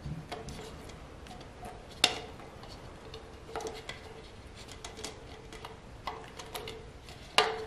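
Thin plastic cup being handled while a rubber band is threaded through a hole in its rim and knotted: scattered small clicks and taps of the plastic, with a sharper snap about two seconds in and another near the end.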